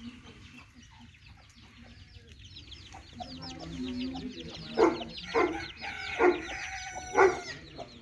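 Chickens: baby chicks peeping in a rapid, continuous run of high chirps, joined from about five seconds in by a hen's loud clucks, four of them less than a second apart.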